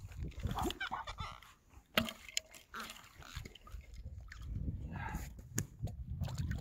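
Ice-fishing tip-up being lifted from its hole and its line pulled in by hand: soft handling noises with scattered clicks, the sharpest about two seconds in. The tip-up has been tripped by a bite.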